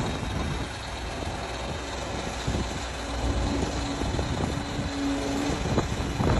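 Liebherr crawler excavator's diesel engine running under load as its hydraulics swing and tilt the bucket, with a steady hum joining in about halfway through.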